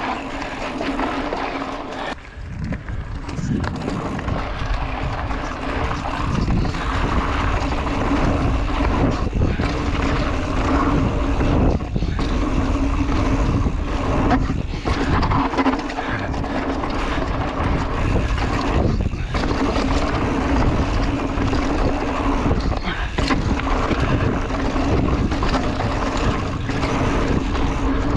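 Mountain bike being ridden on dirt trails: continuous wind rushing over the microphone and tyres rumbling over the ground, with small dips in the noise here and there.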